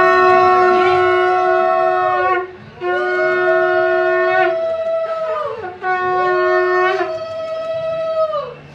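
Conch shells (shankha) blown in three long blasts, two pitches sounding together. Each blast sags in pitch as it dies away.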